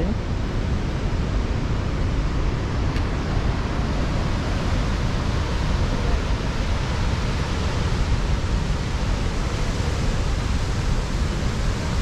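Steady roar of Chitrakote Falls on the Indravati River, the wide waterfall in heavy, muddy flow.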